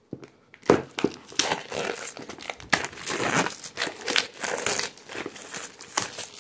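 Clear plastic shrink-wrap being peeled and torn off a small cardboard box, a dense run of crinkling and crackling that starts just under a second in.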